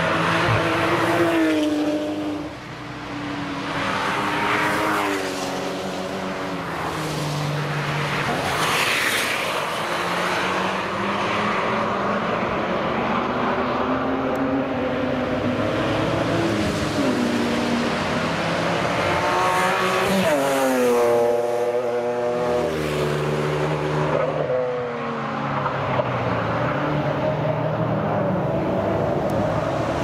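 Sports cars driving past one after another at speed, engine notes rising and falling as they accelerate and change gear, one car fading out as the next comes in.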